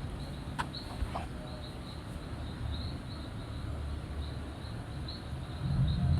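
Small animal chirping steadily outdoors at night: short high chirps about three times a second. A low rumble swells near the end.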